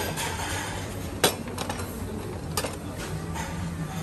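Crockery and cutlery clinking: a sharp clink about a second in, then a few lighter ones, over a steady background hum.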